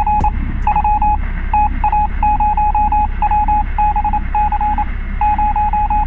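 Morse-code-like electronic beeping: one steady pitch keyed on and off in quick short and longer pulses, in groups with brief gaps, over a steady low rumbling static.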